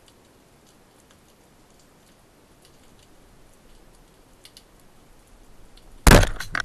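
Underwater shot of a wooden band-powered speargun (Matador Fuoco): a sudden loud crack near the end as the rubber bands release and drive the shaft, followed about half a second later by a second sharp knock. Before the shot, only faint scattered ticks over a low underwater hiss.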